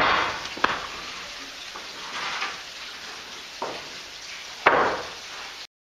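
White pine boards being laid into a welded steel-pipe grow-bed frame: a series of wooden knocks and clatters, the loudest about three quarters of the way through. The sound cuts out abruptly near the end.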